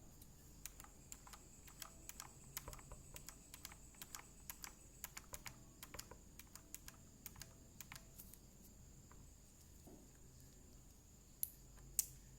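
Faint typing on a mechanical keyboard with Outemu Brown tactile switches: a run of irregular keystrokes for about eight seconds, then a pause and two sharper clacks near the end.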